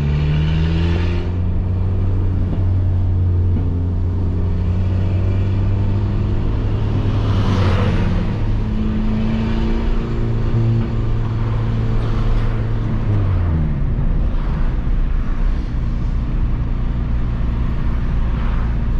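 Peugeot 206 1.4's four-cylinder engine through a straight-pipe exhaust with no muffler, running as the car drives. Its pitch climbs near the start and again about eight seconds in, then drops away with falling revs about thirteen seconds in before settling steady.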